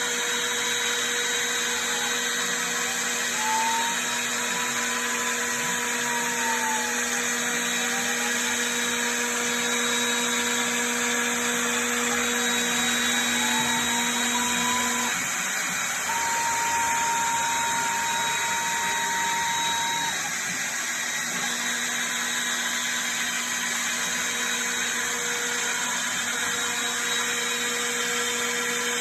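CNC router running a test job: a steady machine hum and high hiss, with a motor tone that rises and falls in pitch as the axes speed up and slow down, then holds one pitch for a few seconds past the middle.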